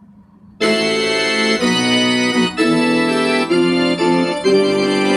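Organ-like keyboard music starting abruptly about half a second in, playing a run of sustained chords that change about once a second.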